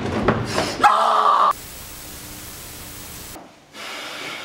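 A loud, rough noise for the first second and a half, then a steady static-like hiss that starts and cuts off abruptly, followed by a fainter hiss near the end.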